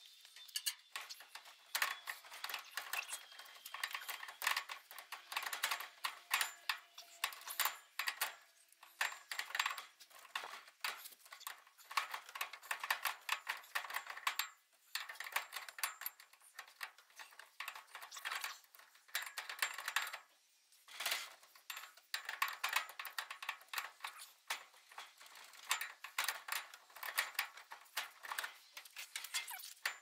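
Metal clinking and clattering of a drive shaft and its U-joint being handled and worked into the yoke by hand, many small knocks and clicks in quick succession with two brief pauses.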